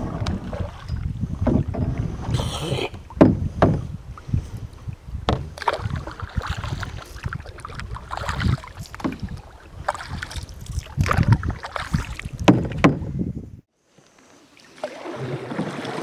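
Canoe being paddled: irregular knocks and clatters of paddles against the hull and splashes, over a low rumble of wind on the microphone. The sound cuts off abruptly about 13.5 seconds in, and after a moment of near silence a quieter stretch of paddling noise begins.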